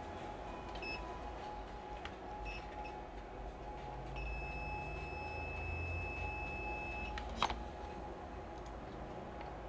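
Multimeter continuity beeper sounding as test probes touch points on a laptop logic board: two short beeps, then one steady beep of about three seconds, the meter's signal of a low-resistance path while checking for a short. A single sharp click near the end.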